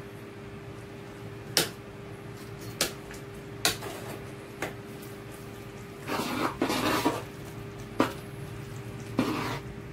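Metal ladle stirring stew in a large aluminium pot, knocking sharply against the pot about five times, with two short scraping sweeps in the second half, over a steady hum.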